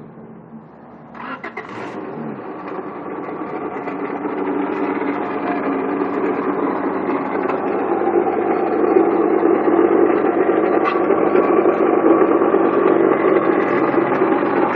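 1997 Honda Accord engine starting about a second in and running, with a steady rattle and grinding from the front of the engine that grows louder, then holds. It is the sound of a failed water pump, whose bearings the mechanic believes have gone bad.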